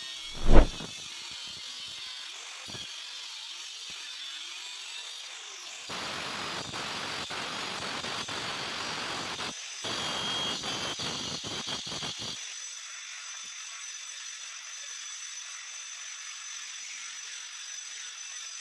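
A sharp knock right at the start, then a handheld electric stone cutter with a diamond blade cutting a granite strip in two runs: one from about six seconds in for some three and a half seconds, and a second, slightly louder one right after for about two and a half seconds.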